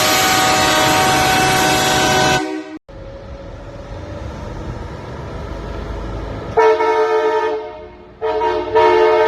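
Aftermarket train horn kit on a vehicle, blowing loud chords of several notes. A long blast with heavy noise cuts off between two and three seconds in, followed by a quieter stretch of low rumble. A fresh blast starts about six and a half seconds in and fades, then two more blasts come near the end.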